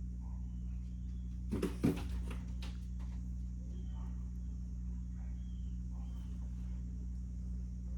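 Steady low electrical hum, with a short clatter of clicks and knocks about two seconds in as small metal fidget slider parts are handled. Faint short chirps come every second or so after that.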